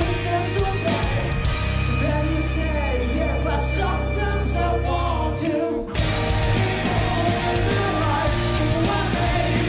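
Live heavy rock band playing: distorted guitars, bass and drums with sung vocals. About halfway through the band cuts out for a moment, then comes back in together.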